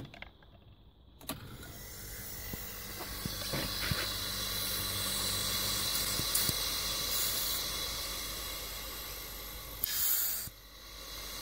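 Casting machine's pump starts about a second in and runs with a steady hum, while air hisses through a disconnected hose line as it is tested for suction or pressure. A short, louder burst of hiss comes near the end.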